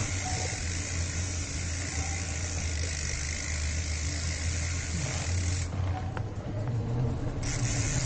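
Riding noise from a bicycle on a concrete lane: a steady low rumble of wind on the microphone and tyres rolling, under an even high hiss that drops out for about two seconds near the end.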